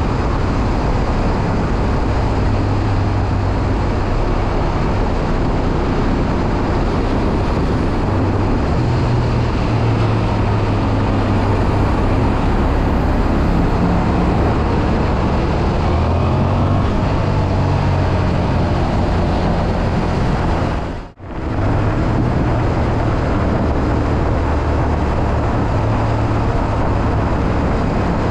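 Suzuki SV400S 90-degree V-twin running steadily at low road speed, its low engine note mixed with heavy wind and road noise. About three-quarters of the way through, the sound drops out sharply for a split second.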